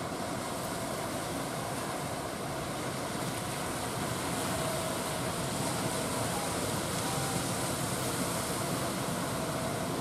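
Steady rush of breaking surf, with a faint, even drone from a small boat's outboard engine running underneath.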